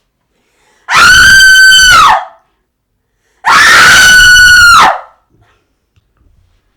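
Two loud, high-pitched screams, one about a second in and a longer one near the middle, each held on one pitch and dropping off at the end.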